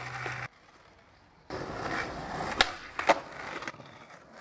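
Skateboard wheels rolling on pavement, starting about a second and a half in, with two sharp clacks of the board close together, then fading out.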